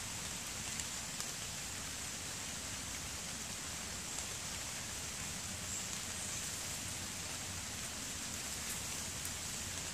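Steady rain falling on the forest leaves, an even hiss.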